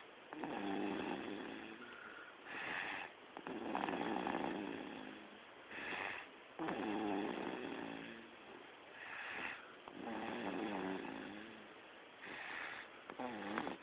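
Baby girl snoring in her sleep: a rattly snore on each breath, repeating about every three seconds, about four breaths in all.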